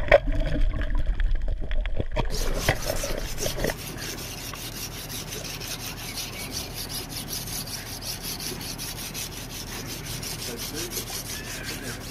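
A knife rasping in quick, evenly repeated strokes, starting about two seconds in after a low rumble.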